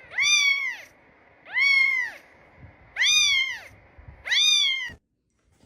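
A cat meowing four times, each meow drawn out and rising then falling in pitch, about a second and a half apart.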